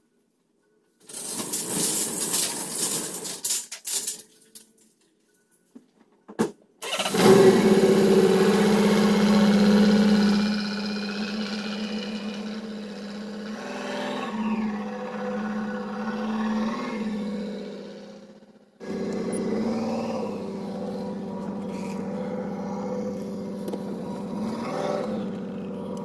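BMW 335d's M57 twin-turbo straight-six diesel starting about seven seconds in and running, loudest at first and then settling. The engine has one dead cylinder from lost compression, which the mechanic puts down to bottom-end damage such as a holed or cracked piston. Before it starts there are a few seconds of loud noise.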